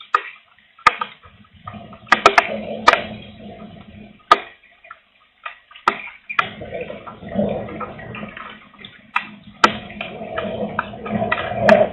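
Strong gusting wind buffeting the microphone, with scattered sharp taps of raindrops. The wind drops away almost completely for a second or two near the middle, then gusts up again.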